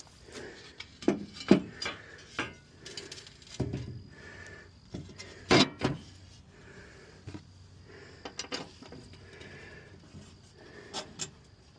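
Irregular knocks, clicks and rubbing of parts and tools being handled on a lawn mower, with two sharper knocks about a second and a half and five and a half seconds in.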